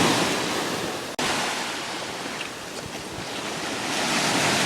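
Ocean surf washing in waves, with wind buffeting the microphone. The sound drops out briefly about a second in, then swells again toward the end.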